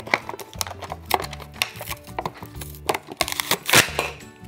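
Plastic toy packaging being handled: repeated clicks, snaps and crinkling as a doll is worked loose from its box, the loudest rustle near the end. Background music plays underneath.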